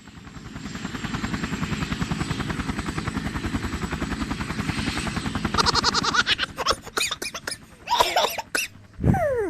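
Helicopter sound effect: a fast, even rotor chop fades in and runs for about six seconds. Short rising-and-falling chirps follow, then a falling whistle near the end.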